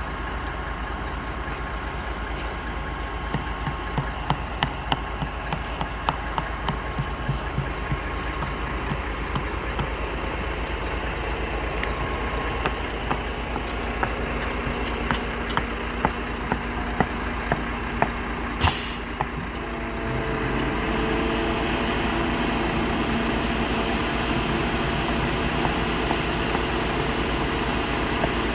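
Heavy diesel truck engine, likely the concrete truck, running steadily, with scattered light knocks over the first two-thirds. A short hiss comes about 19 seconds in, then the engine settles at a louder, steadier pitch.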